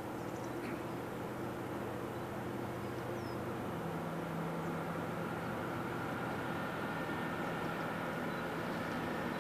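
Diesel train engine running steadily, its note shifting to a new pitch about four seconds in and growing slightly louder.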